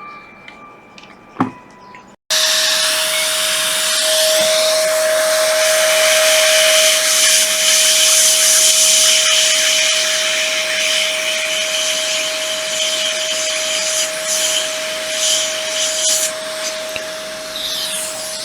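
Hot air rework station blowing: a steady rush of air with a constant fan hum, starting abruptly about two seconds in.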